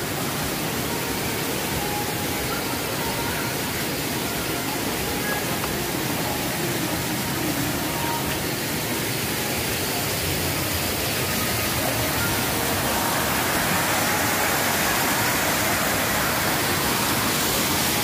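Steady rush of a waterfall pouring and cascading over rock ledges, swelling a little about two-thirds of the way through.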